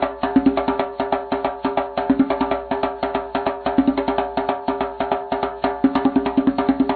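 Background music with a quick, steady percussive beat over sustained tones.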